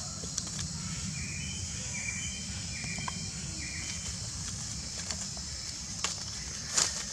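Outdoor woodland ambience: a steady high insect hiss with low background rumble, a few short repeated bird chirps in the first four seconds, and scattered small clicks of dry leaves as the monkeys move. A brief louder noise comes just before the end.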